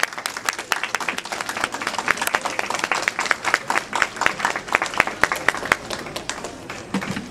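Ringside audience clapping and applauding, dense and irregular, thinning out near the end.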